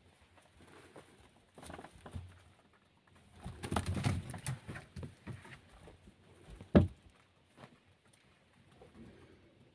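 Sheep and lambs shuffling about on straw in a pen: rustling and soft hoof steps, busiest in the middle, with one sharp knock about seven seconds in.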